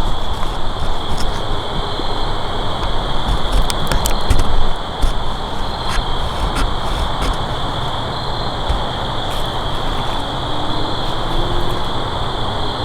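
Steady high-pitched drone of insects, such as crickets, trilling over a loud low rumble, with a few sharp clicks about four seconds in.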